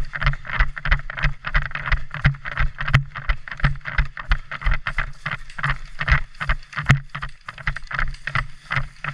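Quick footsteps of a player on the move, about three a second, with gear and clothing rubbing close to a body-worn microphone. Two sharper clicks stand out, about three and seven seconds in.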